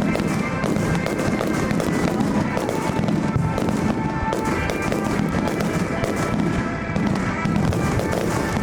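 Fireworks bursting and crackling without pause over music.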